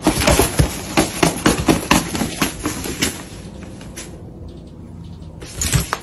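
Fabric lining of a suitcase rustling and scratching as cats scramble about inside it. The rustling is busy and irregular for the first three seconds, then quieter, with a thump near the end.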